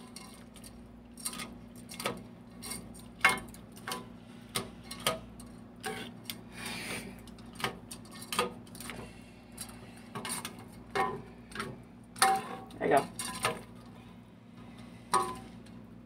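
A stirring spoon knocking and scraping against a metal pot as spaghetti is stirred: irregular clacks, a few of them sharp and loud, over a faint steady hum.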